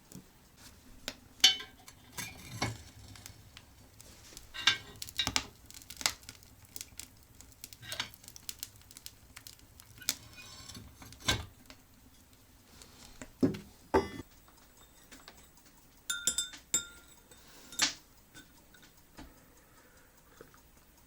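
Dishes and cutlery being handled: scattered clinks and knocks at irregular intervals, a few of them ringing briefly.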